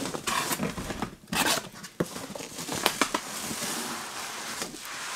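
Cardboard box being opened and a bubble-wrapped package lifted out: cardboard scraping and plastic bubble wrap crinkling, with a few light knocks.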